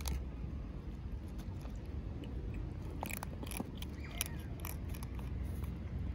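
Kittens crunching dry cat kibble from a plastic tray: quick, irregular crunches and clicks, busiest about three to five seconds in, over a low steady rumble.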